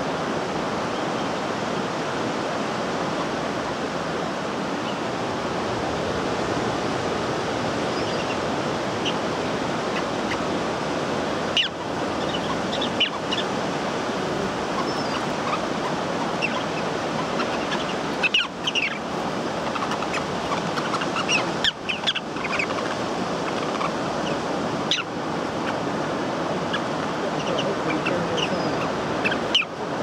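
Steady wash of sea noise with short, sharp, high calls from ruddy turnstones scattered through the second half, several coming in quick little clusters.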